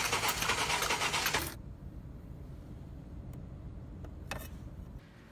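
Water spraying onto a car's open engine bay: a loud steady hiss that cuts off suddenly about one and a half seconds in. A faint low rumble follows, with two short clicks near the end.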